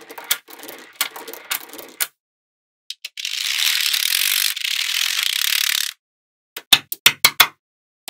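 Small neodymium magnetic balls clicking and snapping together as strands of them are laid into place, with a faint rattle between clicks. In the middle comes a steady hiss of about three seconds, then a quick run of sharp clicks near the end.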